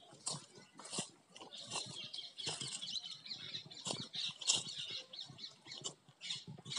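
Footsteps on dry grass, dead leaves and dry earth, a step roughly every two-thirds of a second, with rustling of the dry vegetation in between.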